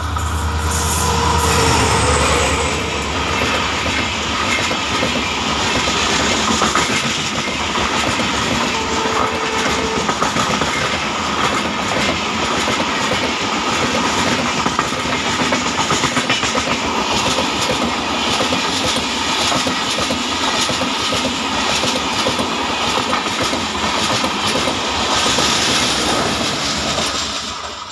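A passenger train passing close by at speed. The WDP4B diesel-electric locomotive's EMD two-stroke engine rumbles past in the first couple of seconds. Then a long rake of LHB coaches rolls by with a steady clickety-clack of wheels over the rail joints, fading near the end.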